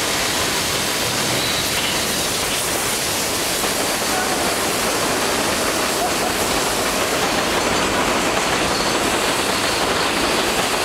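Steady, loud rushing noise with no rhythm or pitch, with faint voices underneath.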